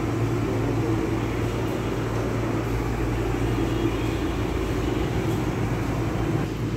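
A steady low mechanical hum over an even rushing noise, unchanged throughout.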